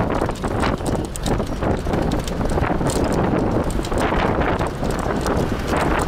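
Heavy wind buffeting the microphone, a steady rumble and rush, with scattered light clicks and knocks through it.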